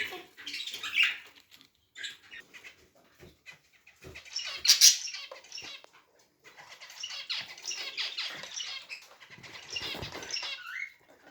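Pet birds chirping and squeaking in short, irregular bursts, loudest about five seconds in and busiest in the second half.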